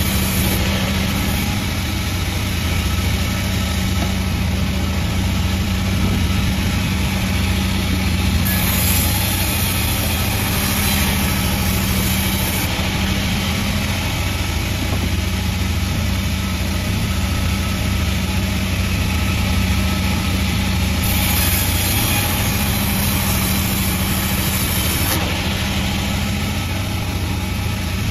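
Sawmill engine running steadily at constant speed with a deep, even hum. A brighter high hiss comes in twice, for a few seconds each.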